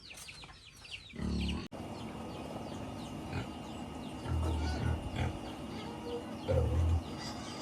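Pigs at feeding, with a few short high squeaks in the first second and two short low grunts later on.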